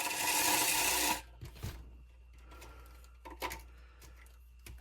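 Axial SCX24 mini RC crawler's electric motor and gears whirring in a short burst for about the first second, the freshly replaced ESC driving it. Then a few light clicks and handling noises.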